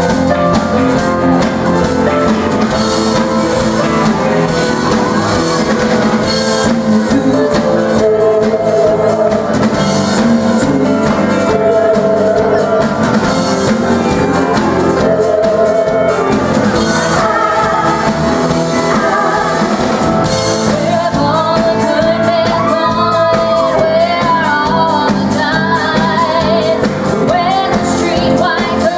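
Live pop-rock music: voices singing over a backing track with drums and guitar, echoing in a large space.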